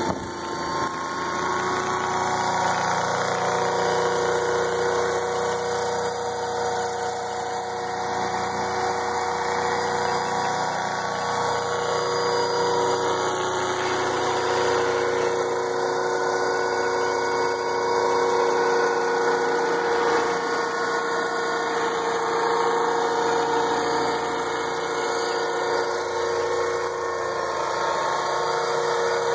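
Electric radio-controlled model Chinook helicopter with twin three-bladed rotors, its motors and rotors running as it lifts off and flies. A steady whine of several tones, shifting a little in pitch.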